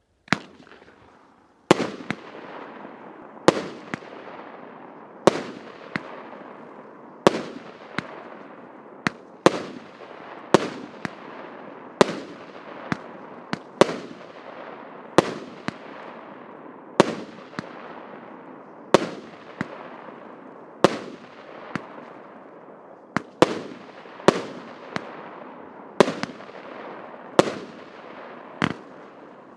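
A 20-shot, 1-inch fireworks cake (Russian Pyrotechnics «Зимний праздник» РС7110) firing shot after shot, a sharp bang about every one and a half to two seconds, each trailing off as it fades.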